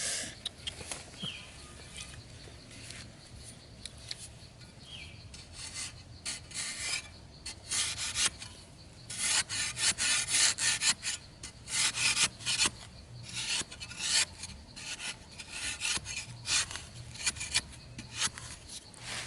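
Irregular, repeated scraping strokes, rasping like a tool rubbed against a rough surface; they grow louder and more frequent about six seconds in and thin out near the end.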